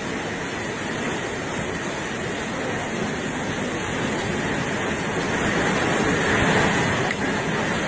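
Super typhoon wind and heavy rain making a dense, steady rushing noise. It swells louder with a stronger gust about six seconds in.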